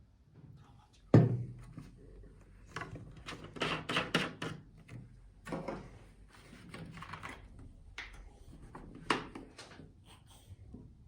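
Handling noises as the steam humidifier and its packaging are unpacked: a sharp thunk about a second in, then a run of clacks and rustles, with another knock near the end.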